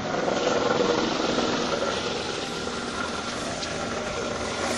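Honda Fit engine idling close up, with a steady mechanical noise from the air-conditioning compressor. The mechanic puts the noise down to a worn bearing wearing the compressor's shaft or front end.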